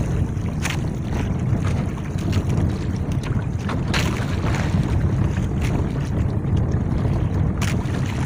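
Wind buffeting the microphone in a steady low rumble, with sea water sloshing around a small outrigger fishing boat. A few sharp knocks come about half a second in, at about four seconds and near the end.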